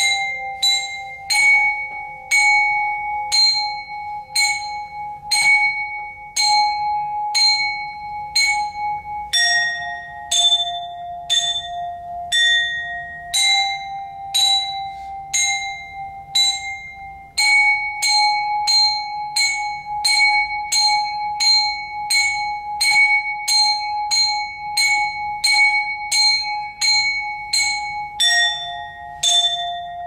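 Percussion quartet playing struck, pitched metal instruments that ring like bells. They keep up an even pulse of strikes, each ringing on at two close pitches. The pitches change every few seconds, and the pulse speeds up to about two strikes a second a little past halfway.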